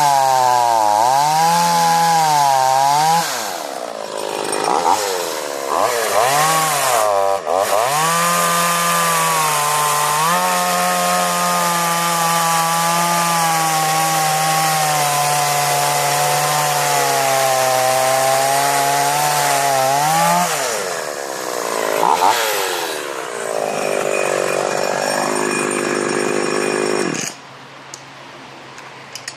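Husqvarna 444 two-stroke chainsaw revved up and down several times, then held at high revs for a long stretch with the pitch sagging a little under load as it cuts wood. It then drops back toward idle.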